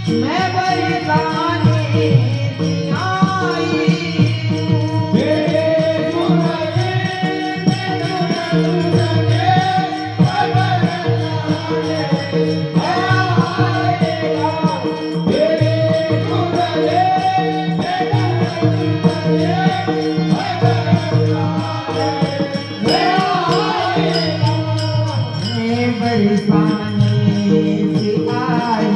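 Devotional Hindi bhajan to Krishna, sung with a winding melody over steady held accompaniment notes and rhythmic percussion.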